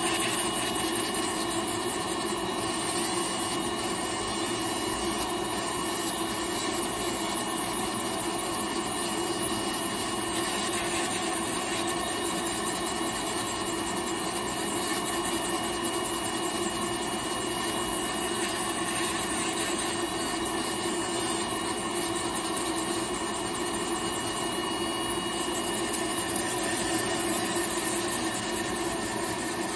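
Podiatrist's electric nail drill running steadily, its small rotary burr grinding down a thickened toenail, with a continuous motor whine.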